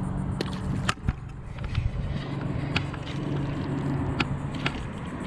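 Steady low engine-like hum with a few sharp clicks and taps scattered through, the hum fading out near the end.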